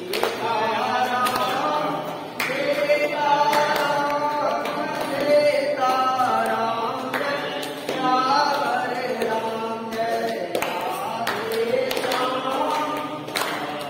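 A crowd singing a devotional arati hymn together, many voices moving through a melody, with occasional sharp knocks.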